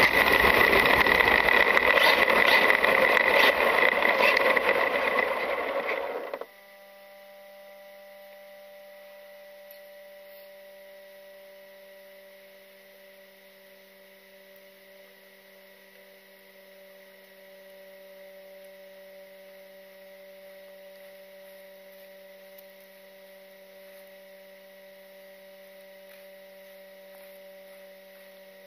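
Traxxas UDR RC truck heard from on board: its brushless electric motor whining with gravel noise under the tyres as it drives, cutting off abruptly about six seconds in. After that only a faint steady electrical hum of several tones from the stopped truck.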